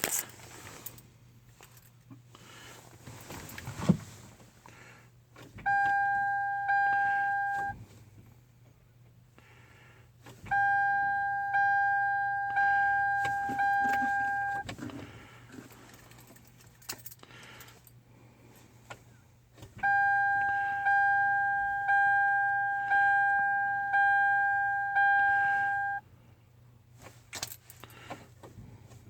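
A Hyundai's dashboard warning chime sounds in runs of evenly spaced beeps, about one a second: first two, then four, then six. Around them come light key jangling and a sharp click about four seconds in, with no engine cranking: the car won't start, and the owner suspects a broken starter solenoid.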